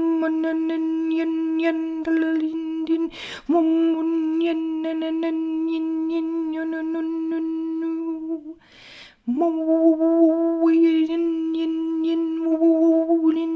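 A woman's voice toning one long steady note, hummed or sung on a vowel. It breaks twice for a breath, about three and nine seconds in, each time sliding up into the same note again.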